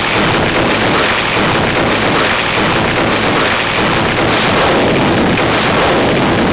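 Homemade spring-and-oscillator noise synthesizer giving a loud, dense, rumbling noise drone. It runs steadily while its knobs are turned, with a brief click about five seconds in.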